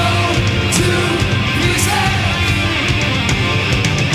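Heavy rock music with electric guitar and drums.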